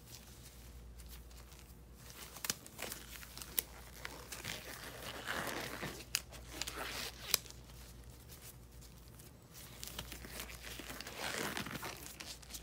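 Disposable gloves being pulled onto the hands: irregular rustling and crinkling with a few sharp clicks.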